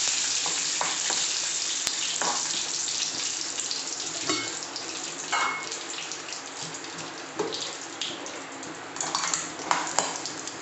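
Mustard seeds, dried red chillies and curry leaves sizzling in hot coconut oil in an aluminium kadai, the sizzle slowly dying down. A steel ladle stirs and scrapes against the pan now and then.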